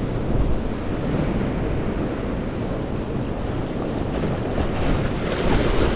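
Steady wind buffeting the microphone over the wash of sea waves.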